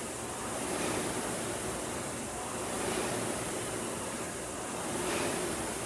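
Concept2 indoor rowing machine's air-resistance flywheel whooshing, swelling with each drive stroke about every two seconds.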